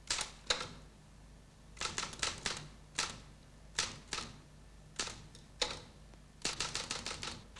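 Typewriter keys striking in irregular bursts of single clacks and short runs, ending in a quick run of keystrokes near the end.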